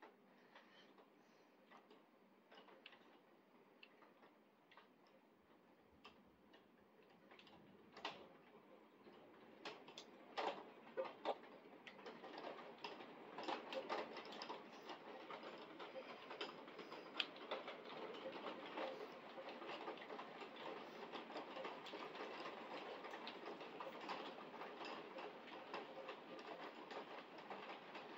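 Rain drops tapping on a window, scattered single ticks at first, then building from about ten seconds in to a denser, steady patter of heavier rain.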